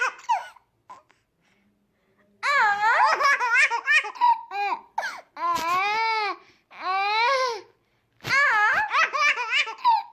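Baby laughing in a run of high-pitched, squealing bursts, starting after a brief lull about two seconds in.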